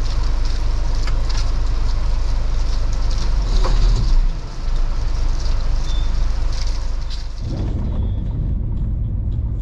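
Lorry diesel engine idling, heard from inside the cab, with a steady hiss above the rumble. About seven and a half seconds in, the sound changes to the lorry running along a road.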